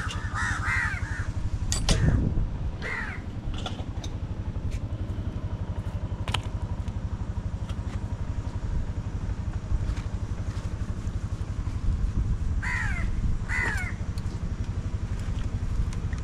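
A few short, harsh bird calls, one about three seconds in and two close together near the end, over a steady low engine hum.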